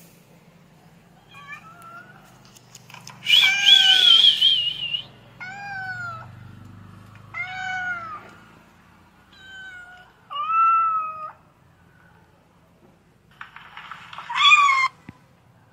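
Cat meowing again and again: about seven drawn-out meows that rise and fall in pitch. The loudest is a long, wavering one about three seconds in, and the last comes near the end.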